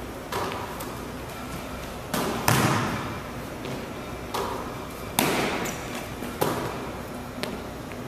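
Basketball shots and bounces: the ball striking the rim and backboard and bouncing on the hardwood gym floor, a string of sharp knocks that ring on in the large hall, the loudest about two and a half and five seconds in.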